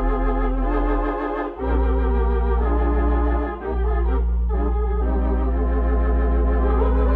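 Organ music: sustained chords with a slight vibrato over long held bass notes. The sound dips briefly about a second and a half in and again around three and a half seconds as the chords change.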